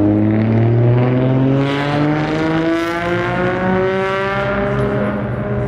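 Electric train's traction motors whining as it accelerates: a layered whine that climbs steadily in pitch.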